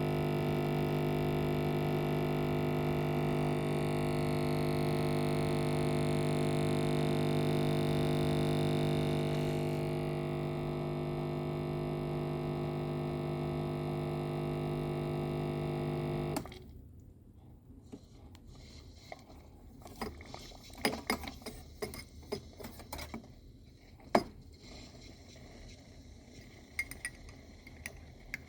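Coffee machine running with a steady, even hum that cuts off suddenly about two-thirds of the way through. Scattered clinks of glass and utensils follow.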